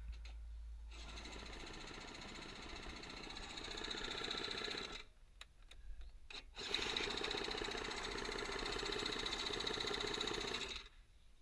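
Four-wheeler's electric starter cranking the engine in two bursts of about four seconds each, with a short pause between. The engine does not catch, as the ATV has run out of gas.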